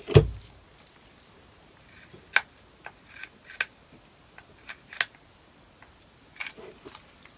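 A low thump at the start, then scattered light clicks and rustles as artificial greenery and craft supplies are handled on a work table.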